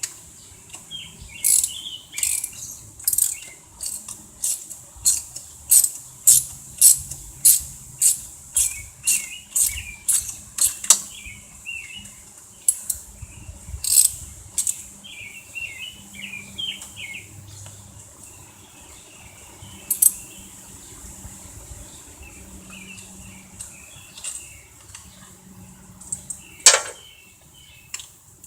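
Socket ratchet clicking in a run of steady strokes, about two a second, as bolts are backed out, then a few scattered clicks and one sharp click near the end; birds chirp in the background.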